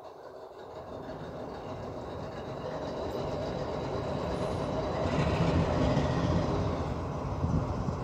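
A train, its rumble growing steadily louder over several seconds as it comes closer.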